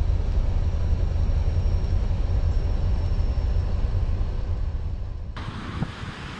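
Steady low rumble of a moving truck heard inside its cab: engine and road noise. About five seconds in it cuts to quieter wind noise on the microphone.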